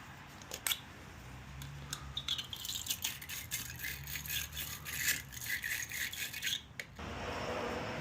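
Metal tools and battery hardware rattling, with a few sharp clicks under a second in, then a dense run of rapid clicking and rattling that stops abruptly near the end.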